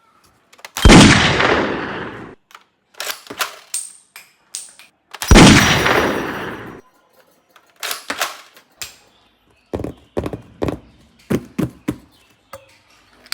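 Gunfire: two loud blasts about four and a half seconds apart, each dying away over a second or so, with a scatter of shorter sharp shots and clicks between and after them.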